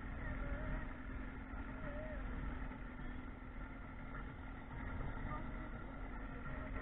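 Boat motor running steadily with a constant hum.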